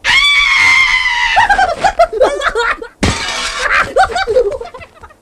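A cartoon character's high-pitched voice. First comes a scream held for about a second and slowly falling, then a string of wordless yelps and squeals. A second burst of yelps starts abruptly about three seconds in.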